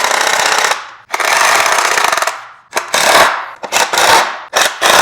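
Power drill driving hinge screws with a T30 star bit: a long buzzing run that stops about a second in, a second run, then several short bursts as the screws are snugged down.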